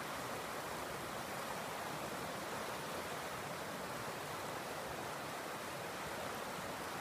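Steady rushing of river water pouring over rocks in a shallow riffle of the South Branch of the Potomac River, an even hiss with no breaks.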